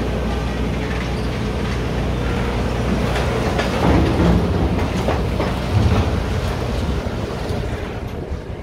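Tracked demolition excavators' diesel engines running steadily, with scattered clanks and crunches as a grab handles scrap metal and rubble.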